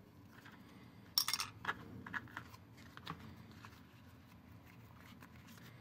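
Small handling sounds of a toy cookie mold and dough on a wooden cutting board. A short scraping rustle comes about a second in, followed by a few faint light clicks and taps.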